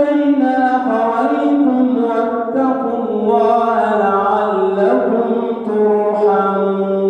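A man reciting the Quran in melodic tajweed style, unaccompanied, his voice moving through ornamented, drawn-out phrases. Near the end he settles into one long held note.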